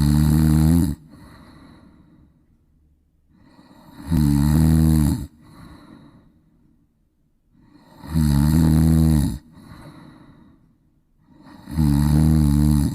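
Snoring in a steady rhythm: four loud, rasping snores of about a second each, one every four seconds. Each is followed by a quieter breath.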